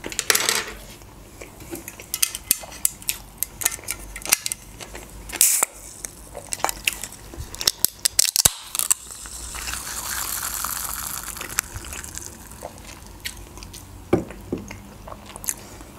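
Close-miked eating sounds: chewing, with many small clicks and taps of chopsticks and utensils. A soft hiss swells and fades for a few seconds in the middle. Near the end a soda can is snapped open.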